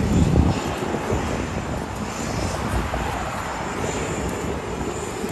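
Steady rushing engine noise of jet airliners at a nearby airport, mixed with passing road traffic.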